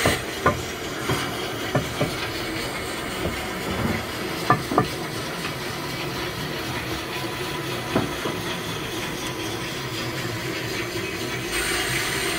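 Steady building-site noise, a hiss with a low hum under it, with a handful of sharp knocks and clacks scattered through it.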